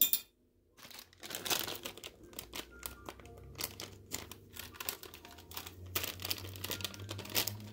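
Plastic food packaging crinkling and rustling in quick, irregular bursts as it is handled.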